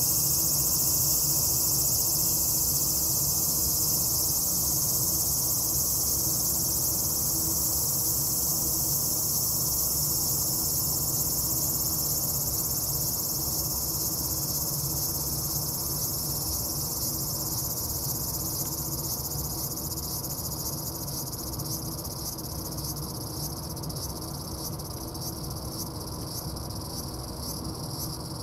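A chorus of cicadas singing steadily as a high, dense drone, growing slightly quieter and breaking into a fast pulsing near the end, over a low steady rumble.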